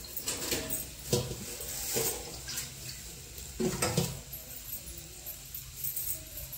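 Water in a pan of chopped vegetables on a gas stove, with a few brief sloshes and light pan sounds over a faint steady hiss.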